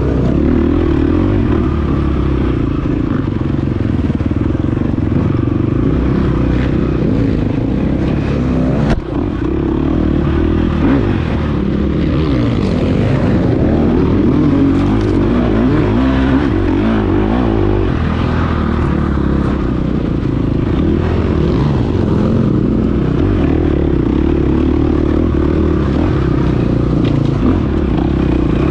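KTM 350 XC-F dirt bike's single-cylinder four-stroke engine running hard under load, its pitch rising and falling with the throttle, with a brief drop in level about nine seconds in.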